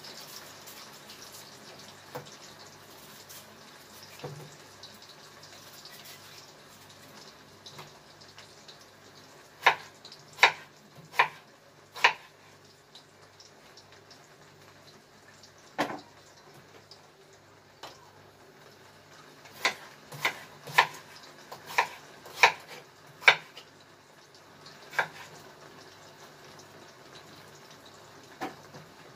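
Kitchen knife cutting potato into strips on a wooden cutting board: sharp knocks of the blade striking the board, mostly in runs of four to six strokes under a second apart, with a few single strokes between.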